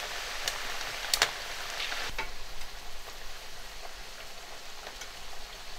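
Potato wedges deep-frying in hot canola oil in a skillet, a steady sizzle that shows the oil is hot enough. A few sharp clicks of metal tongs against the pan come in the first two seconds.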